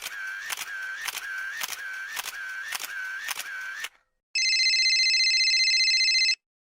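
Sharp mechanical clicks, a little under two a second, with a whirring tone between each, stopping about four seconds in. Then, after a brief gap, a harsh electronic buzz is held for about two seconds.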